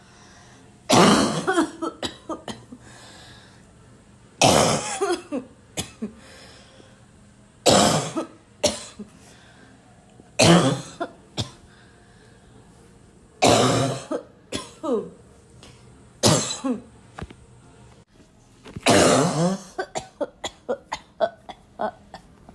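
A person coughing in loud, barking fits: a hard cough about every three seconds, each followed by a few weaker coughs, and a rapid string of short coughs near the end.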